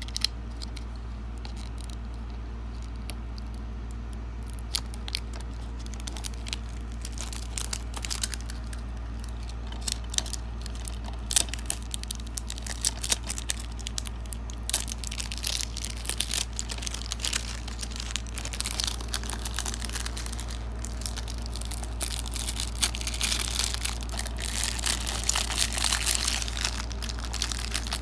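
Clear plastic shrink wrap being picked at and peeled off a DVD case with the fingers: scattered crinkles and small tearing crackles, sparse at first and growing denser toward the end.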